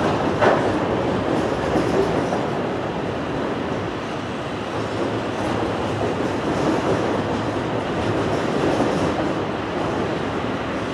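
A train's cars rolling past on the rails with a steady rumble, and a sharp wheel click over the track about half a second in.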